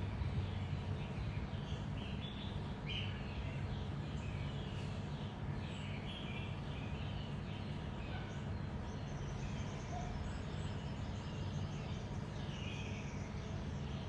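Small birds chirping on and off over a steady low background rumble.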